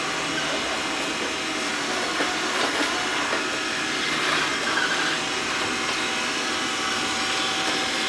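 Xiaomi Mi Robot Vacuum running with a steady whirring hum and a faint steady tone.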